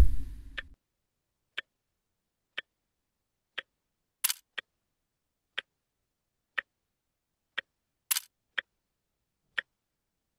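Clock ticking steadily, about once a second. A low thump sounds right at the start, and two short, bright sounds come about four and eight seconds in.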